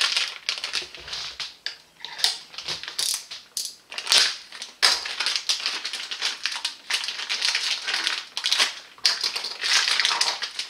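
Packaging of a set of RC buggy wheels being opened by hand: irregular crinkling and rustling with sharper crackles, pausing briefly a few times.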